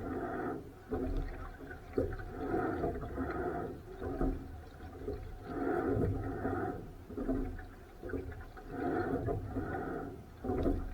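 Rowing strokes: a rhythmic whooshing surge about every three seconds, over a low steady rumble.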